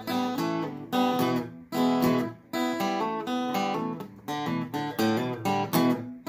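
Acoustic guitar playing a blues, strummed chords in phrases with brief pauses between them.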